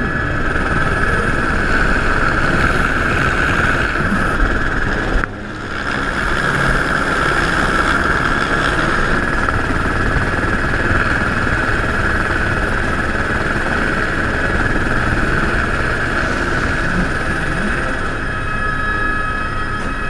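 Helicopter engine and rotor running steadily, heard from inside the cabin with the door open, with a constant high whine over the rotor noise; the level dips briefly about five seconds in.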